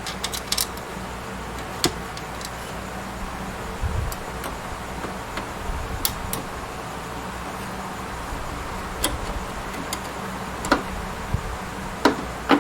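Scattered light clicks and taps of screws, a screwdriver and a hard drive being handled against a metal desktop-PC drive mount while the drive is lined up and screwed in. There is a quick cluster at the start, then single ticks every second or few, the sharpest near the end.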